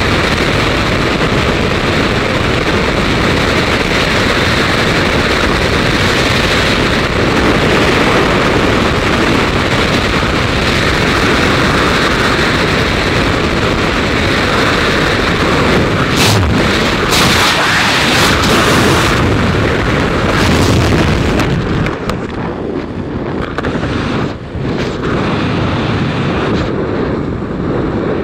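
Freefall wind rushing over the skydiver's camera microphone, a loud, even roar with a few sharp buffets. About 22 seconds in the parachute opens and the roar drops, losing its hiss, to the gentler wind of flying under canopy.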